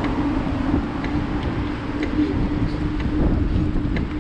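Bicycle riding along a paved path, filmed from the bike: steady wind buffeting on the camera microphone and tyre rumble on asphalt, with a steady low hum and light ticks about twice a second.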